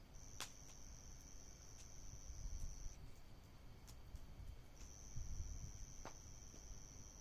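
An insect trilling: one steady high-pitched trill that breaks off around three seconds in and starts again about five seconds in, with a few sharp pops and a low rumble underneath.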